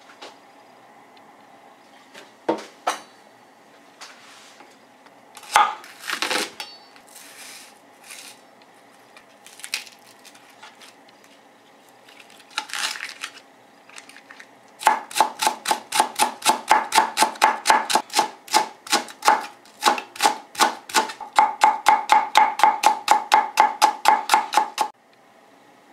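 Kitchen knife thinly slicing a Japanese long onion (negi) on a cutting board: a fast, even run of knife strokes, about four or five a second, starting a little past the middle and stopping shortly before the end. Before it, scattered knocks and rustles of the onion being handled and peeled.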